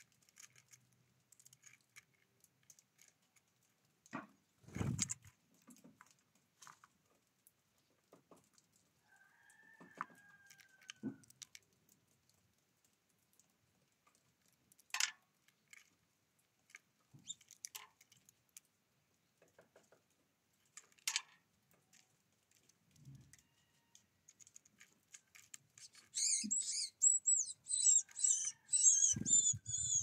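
Great tit at a wooden tray of sunflower seeds: scattered taps and knocks of beak and feet on the wood and seed husks. Near the end a loud burst of rapid, high bird chirps, with a low thump as a bird flies off the tray.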